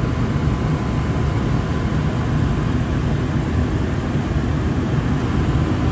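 Gas furnace running steadily, its main circulation blower on and its newly replaced draft induction blower running quietly: a continuous low rumble of fan and airflow with a faint steady high whine.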